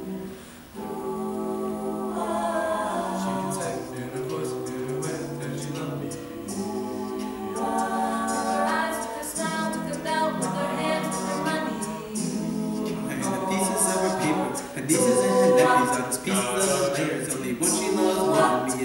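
Mixed-voice a cappella group singing held, wordless chords in close harmony, with vocal percussion coming in about a third of the way through and growing busier toward the end.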